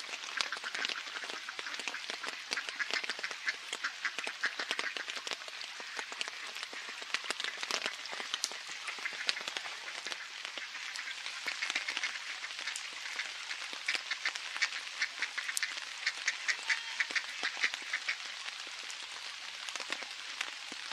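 Ducks quacking in runs of quick calls, clearest in the second half, over steady rain pattering on water and wet pavement.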